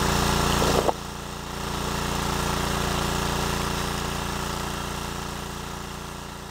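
Small engine-driven water pump running steadily. About a second in there is a click and a sudden drop in level, then the sound swells back and slowly fades out.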